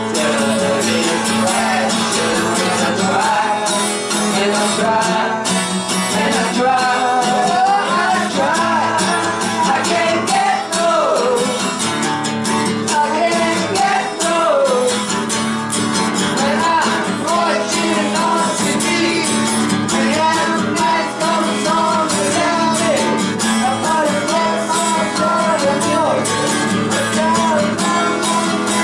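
Acoustic guitar being strummed, with a voice singing a melody over it.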